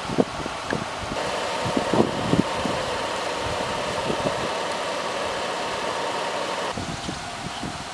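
Car engine idling with a steady hum, with scattered light knocks and clicks that cluster in the first two and a half seconds. The steady sound steps up about a second in and drops back near the end.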